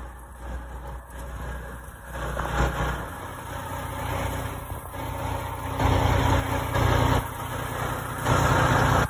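Heavy diesel truck engine idling, with louder rushing surges about six seconds in and again near the end.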